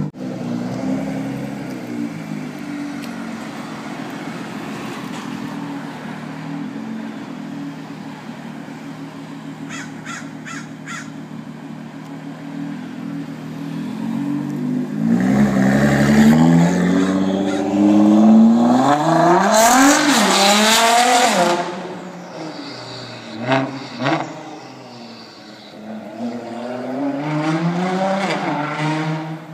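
Straight-piped, catless Nissan GT-R twin-turbo V6 idling with a steady low note. About halfway through it pulls away and accelerates hard, its exhaust note climbing in pitch and dropping back at each gear change. It then fades, with another, fainter run of acceleration near the end.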